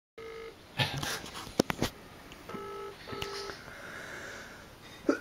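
Telephone ringback tone heard through a phone: a British-style double ring, two short low buzzes close together, while the call goes unanswered. A few sharp clicks of phone handling come about a second in.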